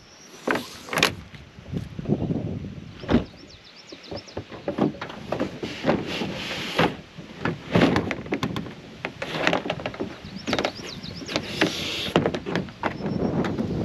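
Plastic kayaks being untied and slid off a car's roof rack: a busy run of knocks, clunks and scrapes of the hulls on the rack and roof, with rope and straps rustling.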